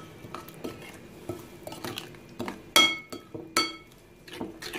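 Metal spoon stirring an oil-and-spice marinade in a ceramic bowl, clinking irregularly against the bowl's side with short ringing knocks. Two knocks a little before and after three seconds in are the loudest.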